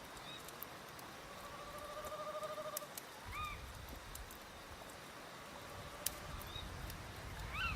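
Looped nighttime nature soundscape: a low, steady rush of stream and wind, an owl's wavering trill in the first few seconds, short bird-like calls, and scattered sharp crackles of a wood fire.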